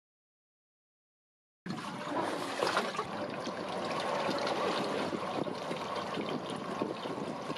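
Complete silence for about the first second and a half, then steady sea water lapping and sloshing, running on without a break.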